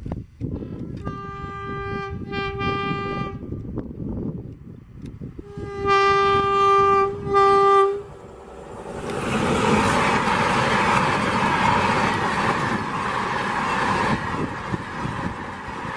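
WAP-5 electric locomotive's horn sounding two pairs of blasts, the second pair louder. About nine seconds in, the Vande Sadharan Express passes at speed with a loud, steady rush of wheel and rail noise.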